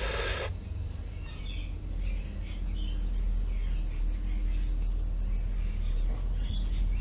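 Birds chirping in the background, short scattered calls over a steady low hum, with a brief rustle at the very start.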